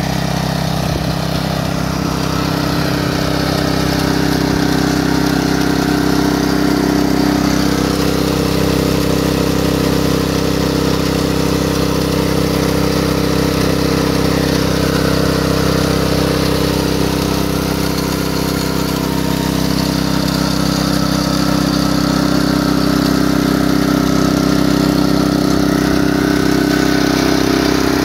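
Small engine of a walk-behind power tiller running at a steady speed, driving a generator attachment. The pitch stays even and the sound is loud.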